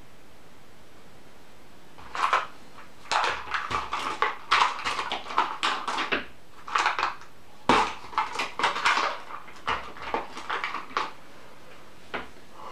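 Plastic dice clattering against each other and a small box as a hand rummages through them: a long run of irregular clicking rattles in short clusters, stopping about a second before a last single click.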